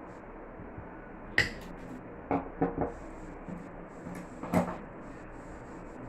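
Wire cutter snipping off the excess of a 21-gauge stainless steel orthodontic wire, with a sharp click about a second and a half in. Several smaller clicks and a second sharp click follow as the metal hand tools are handled.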